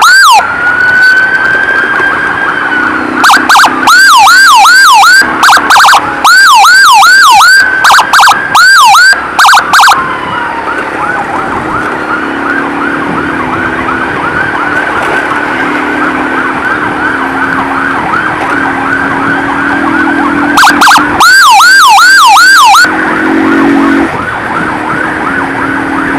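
Emergency sirens in traffic. A loud, close siren sounds in repeated bursts of quick falling sweeps, about three a second, for several seconds early on and again briefly about three quarters through. Under it a fainter, fast-warbling siren from the following ambulance runs throughout.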